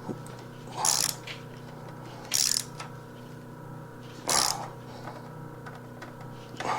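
Socket ratchet wrench clicking in three short bursts, about a second, two and a half seconds and four and a half seconds in, as bolts are run down and tightened. A steady low hum runs underneath.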